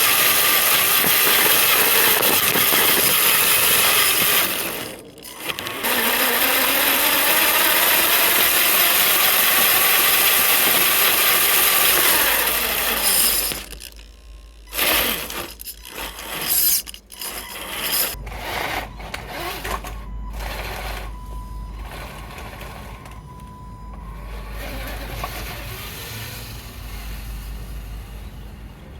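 Tamiya Bruiser RC truck's electric motor and three-speed gearbox whirring under load as it drives, dropping briefly and then rising in pitch as it speeds up. From about halfway it goes in short stop-start bursts with pauses between, then runs quieter. The gearbox runs on a stripped spur/counter gear that was cut down and flipped to mesh on its unworn section.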